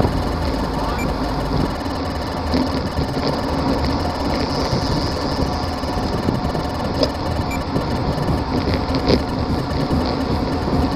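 Wind rushing over the microphone and road rumble shaking a bike-mounted camera on a road bicycle at speed, a steady noise with a few sharp clicks and rattles.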